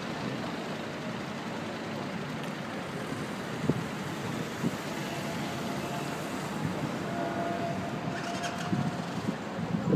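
Steady traffic noise of a city intersection: cars and motor scooters passing, with a few short knocks.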